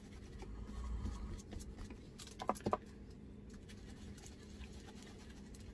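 Faint scratchy dabbing of a small paintbrush working sealer into the recesses of an air-dry clay spoon rest, with a few sharper light taps about two and a half seconds in.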